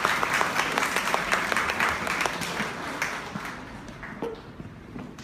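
Audience applauding, the clapping fading away over the last two seconds.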